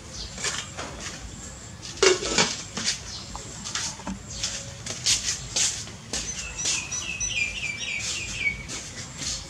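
A small bird chirping a quick run of short, falling high notes about two-thirds of the way in, over scattered sharp clicks and knocks, the loudest about two seconds in.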